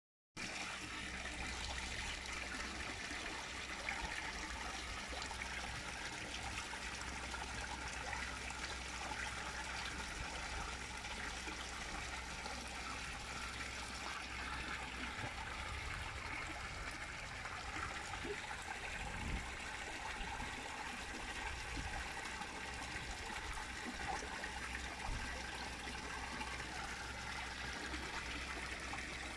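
Steady trickle and splash of water running into a koi pond. A few soft low thumps come about two-thirds of the way through.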